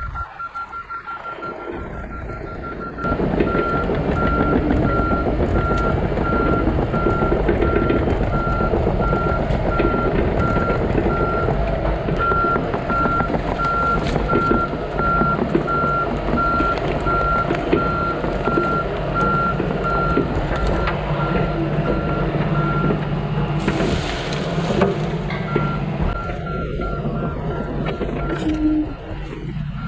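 Komatsu PC88 excavator running under work with its travel alarm beeping at an even pace as the machine tracks. The diesel gets louder about three seconds in, and near the end the beeping stops for a couple of seconds while a short hiss is heard.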